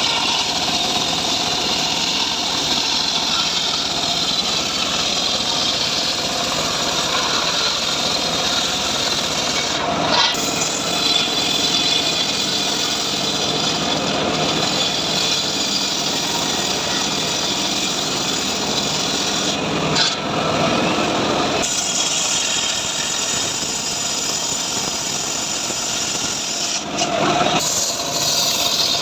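Home-built sawmill (gergaji srekel) blade cutting through a sengon log: a steady, loud rasping saw noise, with brief changes in the cut about ten, twenty and twenty-seven seconds in.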